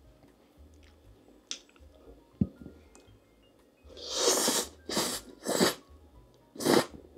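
Close-miked mouth eating sounds: soft chewing and small clicks, then four loud, noisy chews or bites in the last three seconds, the first the longest.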